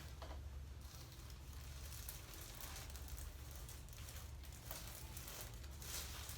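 Faint rustling of clothing against the padded treatment table as the patient is handled, with a few brief louder rustles, the loudest near the end, over a steady low hum.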